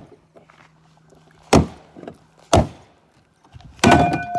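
Three heavy blows striking the broken remains of a household phone, about a second apart; the last is a rattling cluster of hits that leaves a short metallic ringing tone.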